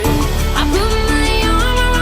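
Background music: a melody with gliding, ornamented notes over a steady bass drone.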